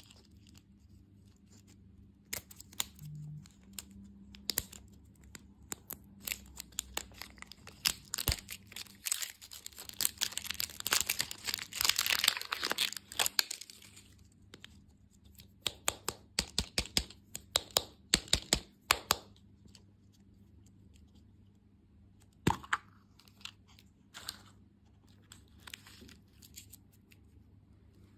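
Plastic candy wrappers or packaging crinkling and tearing in quick crackles, densest about ten to fourteen seconds in and thinning out toward the end.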